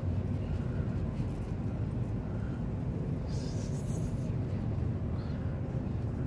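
Steady low outdoor rumble, with a short scratchy noise about three and a half seconds in.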